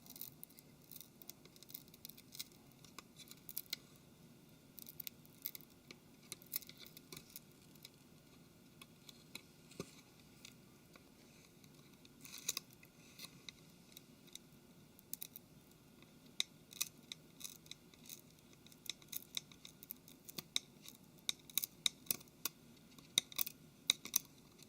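Small irregular clicks and scrapes of a tool prying and lifting at a smartphone's plastic casing and flex cable, growing more frequent in the second half.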